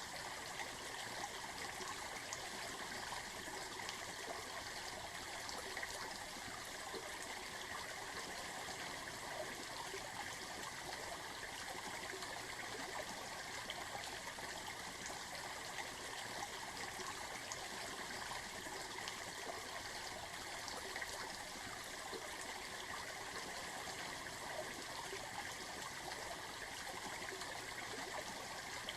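Steady running water like a flowing stream, an even babbling without pauses.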